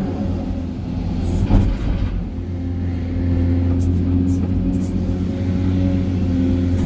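Hydraulic excavator's diesel engine humming steadily from inside the cab as the bucket swings and digs into soil and rock, with a sharp knock about a second and a half in.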